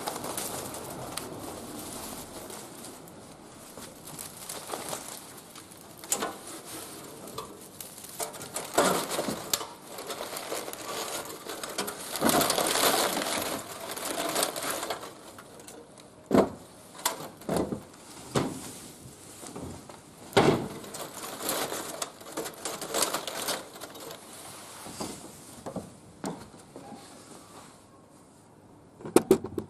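Irregular rustling and handling noises around a wood fire in a barbecue grill, with several sharp knocks or cracks, the loudest about a third and two thirds of the way through.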